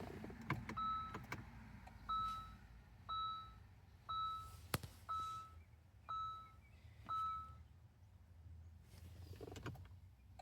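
Electronic beeps about once a second, seven in a row, during immobilizer key programming; they stop for the last few seconds. A few sharp clicks come near the start and one louder click about halfway through.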